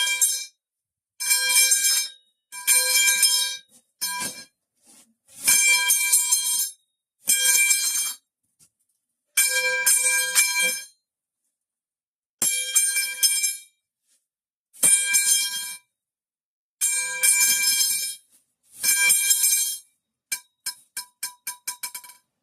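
The meme 'metal pipe falling' sound effect repeated again and again: a metal pipe clanging, each strike ringing on with a bell-like tone for about a second. There are about ten clangs with short gaps, a few cut off early, and near the end a quick stuttering run of clipped clangs.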